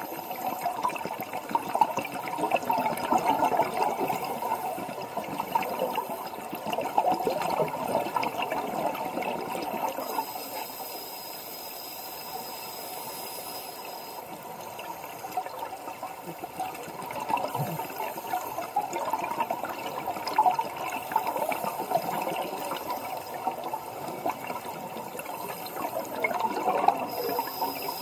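Scuba diver's exhaled air bubbling out of the regulator underwater, in long irregular bursts with a quieter stretch of several seconds near the middle.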